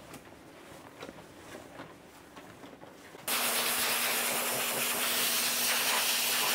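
Faint rustle of a towel rubbing a wet dog's coat. Then, about three seconds in, a dog-grooming high-velocity dryer starts abruptly: a loud, steady rushing hiss with a low hum under it.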